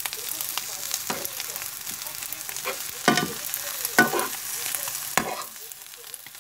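Fried rice sizzling in a hot pan while a metal spoon scrapes and stirs it, several strokes across the pan, the loudest about three and four seconds in.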